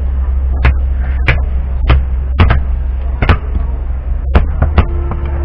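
Heavy cleaver chopping seer fish on a wooden log chopping block: about seven sharp chops, roughly one every half second to second.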